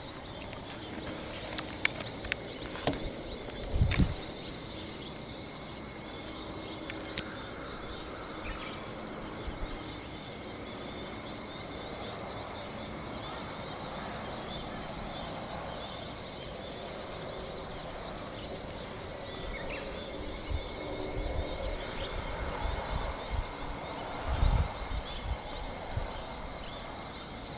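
Cicadas chorusing at dawn, a steady high-pitched drone that swells and pulses for a few seconds in the middle.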